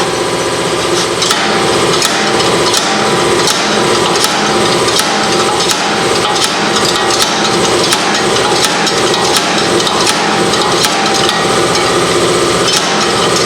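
Slide hammer repeatedly slamming against its stop to pull a stuck rear wheel hub off, sharp metallic blows about one every 0.7 s, over steady machine noise.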